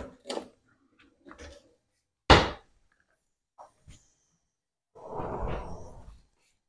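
Kitchen handling sounds as a baking tray is fetched from a lower cupboard full of pans. There is one sharp knock about two seconds in, the cupboard door shutting, then a few small ticks, and a second of rustling and scraping near the end.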